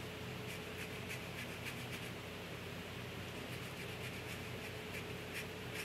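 Lemon peel being grated with a small handheld zester: short, faint scraping strokes about three a second, with a pause midway.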